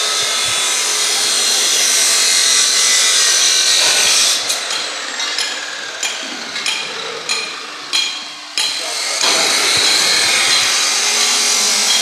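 Steel truck-body fabrication noise: a steady hiss of power-tool metalwork on steel. In the middle it gives way to a run of sharp, ringing hammer blows on metal at uneven spacing, then the hiss returns.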